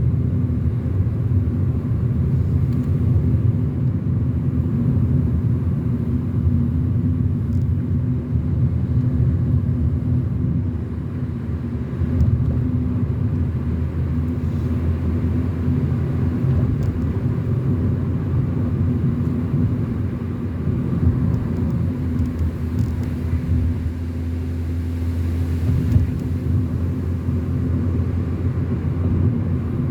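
A car driving along a road: steady low rumble of engine and tyres with a constant hum.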